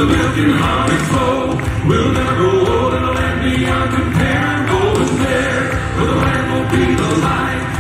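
Southern gospel male quartet singing a chorus in close four-part harmony, with accompaniment music underneath.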